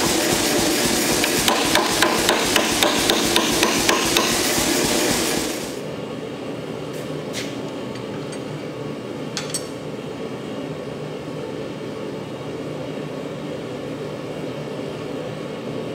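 Power hammer pounding a hand-held top tool down onto a red-hot bar of 3/4-inch square steel, a fast, even run of blows that stops about five and a half seconds in. After that a quieter, steady shop noise continues, with two light clicks.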